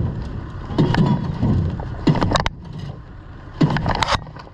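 Small 5-horsepower outboard motor being pull-started, about three short rasping pulls on the recoil starter a second and a half apart, without the engine catching: the kill-switch clip is not fitted, so it won't fire.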